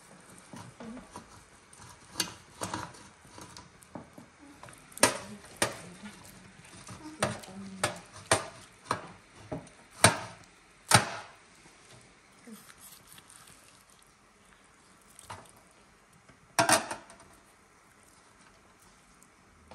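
Carving knife and fork clinking and scraping against a steel serving tray while roast lamb legs are cut, with the blade crunching through the crisp crust. The clinks come irregularly, about a dozen sharp strikes, busiest in the first half and once more near the end.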